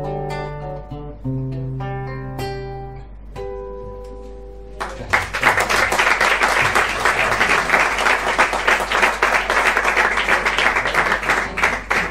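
Acoustic guitar playing the closing chords of a song, the last chord left ringing. About five seconds in, an audience breaks into applause, which is louder than the guitar and goes on to the end.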